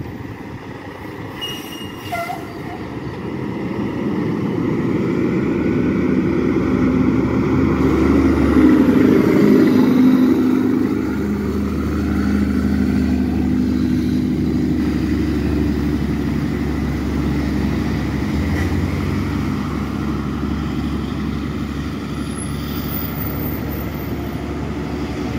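Heavy diesel dump truck engine running as it comes past, growing louder to a peak about eight to ten seconds in, then carrying on as a steady low drone as it pulls away.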